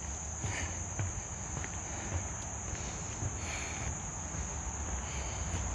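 Steady, high-pitched chorus of insects in late-summer woods, with a faint low rumble beneath it.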